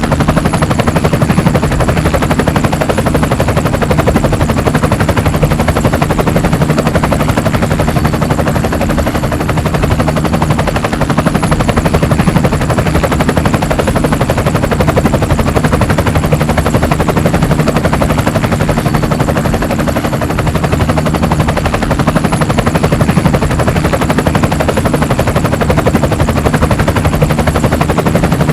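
Helicopter running steadily: a fast, even chop of the rotor blades over a steady engine drone, with a faint high whine.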